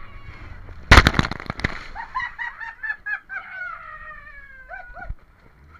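Small boat's hull slamming into a wave, with spray crashing over the side in a loud burst about a second in. It is followed by people's excited, quickly repeated cries and shrieks that slowly fall in pitch and stop shortly before the end.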